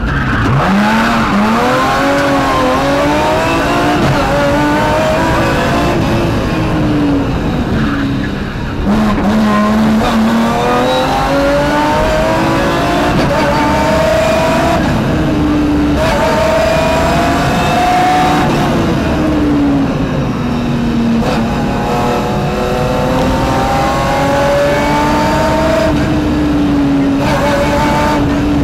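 BMW rally car's engine at full stage pace, heard from inside the cockpit. The revs climb and drop again and again through gear changes and lifts for corners.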